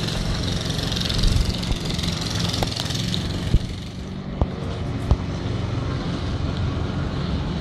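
Walk-behind lawn mower running with a steady drone, with a few short sharp clicks around the middle.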